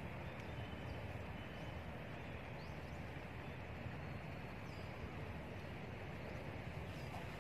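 Steady outdoor background noise, mostly a low rumble, with a few faint, short high chirps from birds scattered through it.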